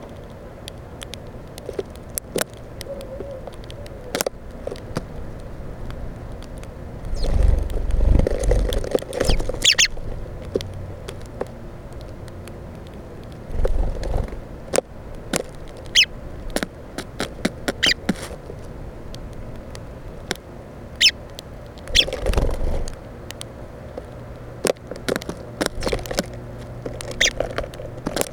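Birds feeding at a seed-filled Plexiglas bird feeder: many sharp, irregular taps and clicks of beaks pecking at seed and the plastic, with a few louder low scuffles about a third of the way in, around the middle, and again later.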